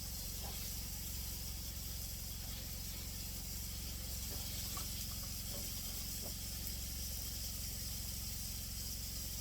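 Deer backstrap frying in a pan: a steady sizzle with a few faint pops.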